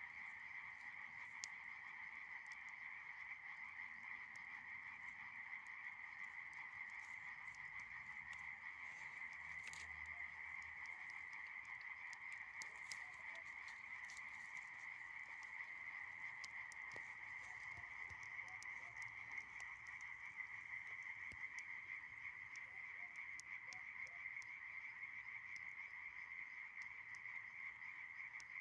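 A steady, unbroken chorus of small calling animals, faint and dense, with scattered faint crackles from a bonfire of dry branches.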